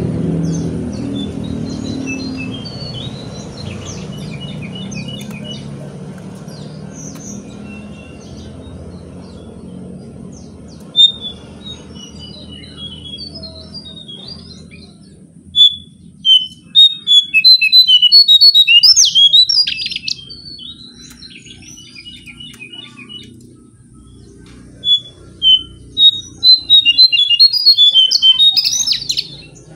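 Caged jongkangan songbird singing, its ringing 'king kung kang king' song coming in loud phrases, once briefly and then twice in longer runs, with scattered chirps between. A low background rumble fades out over the first several seconds.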